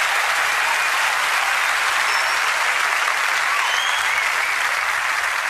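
Large audience applauding steadily, with a few faint whistles rising above the clapping.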